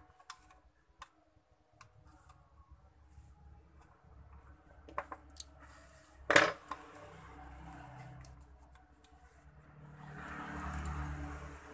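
Small plastic clicks and taps from handling the parts of an opened computer mouse, with one sharp, loud click about six seconds in and a swell of soft noise near the end.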